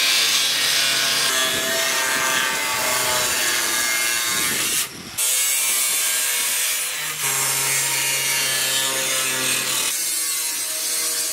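Angle grinder with a cutting disc cutting through thin aluminium pontoon tube: a continuous high grinding rasp with a whine, which stops briefly about five seconds in and then starts again.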